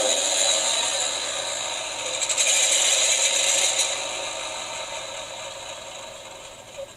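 Simulated engine sound from the electronic sound box of a motorized 1/48 scale Nakajima J1N1 Gekko model, a rattling, clattering engine noise, louder for a moment around the middle, then fading away steadily toward the end.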